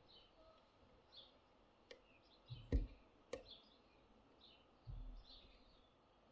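Three sharp clicks and a couple of low bumps as a pick works inside a Miwa E6 magnetic dimple lock, the loudest click nearly three seconds in. Faint bird chirps are heard behind throughout.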